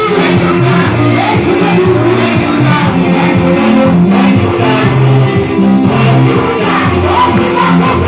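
Live church worship music: a band with bass and guitar plays a steady, loud groove, and some singing can be heard.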